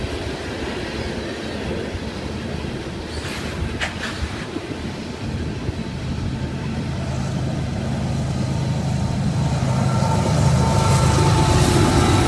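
Freight train hopper cars rolling past on jointed track with a few clacks, then diesel locomotives drawing level, their engine drone growing louder over the last few seconds with a faint whine on top.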